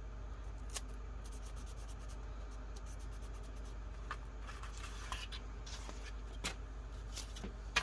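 Paper and stickers being handled during collage work: soft rustling of paper and a few light taps and clicks, over a faint low hum.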